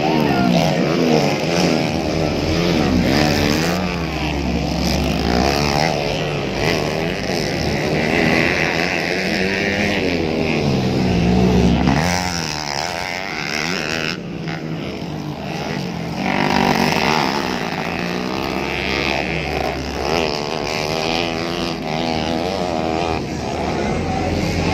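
Motocross dirt bikes racing, their engines revving up and down in pitch, several overlapping at once.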